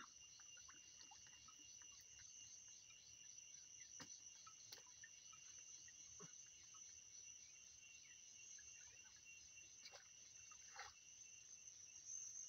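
Faint chorus of insects such as crickets: a steady high-pitched buzz with a fast pulsing over it, and a few soft clicks and knocks now and then.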